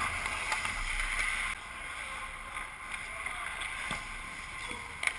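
Ice hockey skates scraping and gliding on the rink ice, with a few sharp clicks. The scraping is louder for the first second and a half, then eases off.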